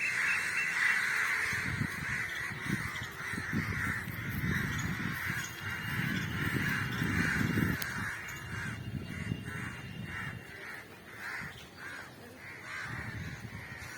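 Birds calling in a continuous chorus that turns into a fast repeated pulsing call in the second half, over an irregular low rumble.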